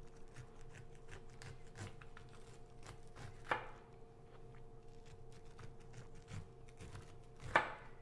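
A santoku knife cutting kernels off a cooked ear of sweet corn: a run of small crisp cuts and scrapes as the blade works down the cob, with two louder knocks, one about halfway through and one near the end.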